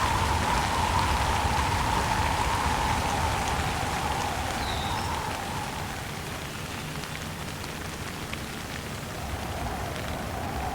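Steady rain falling, growing a little quieter midway and picking up again near the end.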